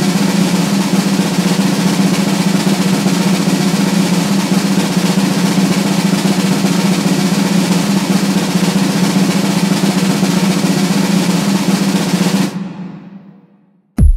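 Snare drum roll held at an even level for about twelve seconds, then fading away. A sharp, loud beat lands just at the end.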